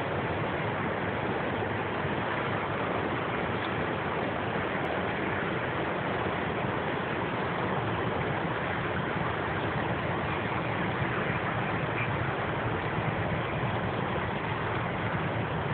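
Vespa LX 50 scooter running: a steady, unbroken engine noise at an even level.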